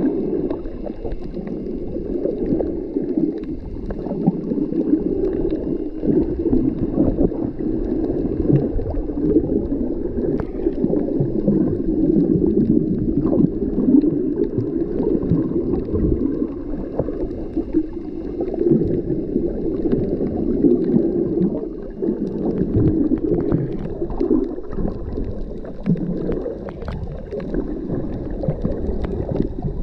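Muffled underwater rush of water moving against a submerged camera, with gurgling and a few faint clicks. The sound is low and dull, as heard with the microphone under the surface.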